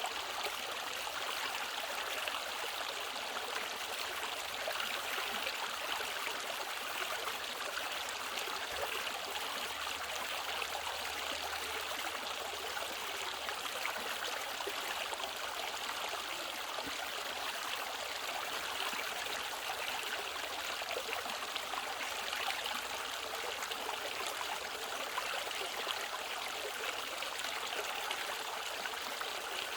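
Mountain stream flowing steadily over rocks, a continuous rushing and trickling of valley water.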